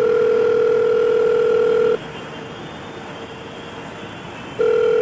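Telephone ringback tone heard on a call: a steady tone sounding for about two seconds, a pause of about two and a half seconds, then the tone starting again near the end.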